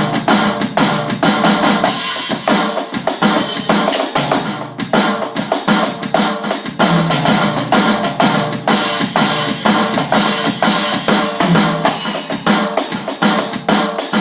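Drum kit played in fast, continuous triplet sticking: Swiss Army triplets (a flam on the first note of each right-right-left or left-left-right group) moved around the snare and toms, with bass drum under it.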